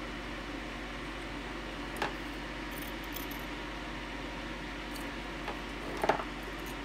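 A few light clicks and taps of small parts and hand tools being handled on a workbench over a steady hiss. One tap comes about two seconds in, and a short cluster near the end is the loudest.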